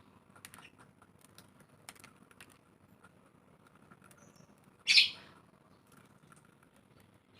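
Sun conure giving one short, loud, shrill call about five seconds in, between scattered light clicks and taps.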